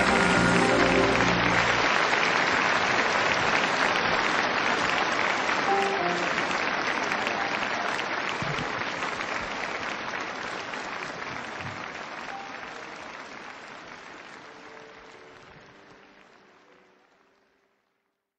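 Audience applauding, with the orchestra's closing chord ending about two seconds in; the applause then fades out steadily until it is gone near the end.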